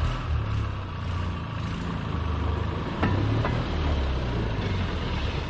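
Engine of a small rail motor car (speeder) running as the car rolls along the track toward the camera, with two sharp clacks about three seconds in.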